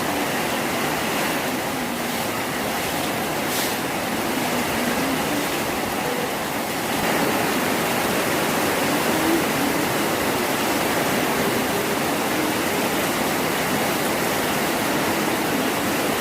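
Heavy rain pouring down in a storm, a dense steady hiss that grows a little louder about seven seconds in.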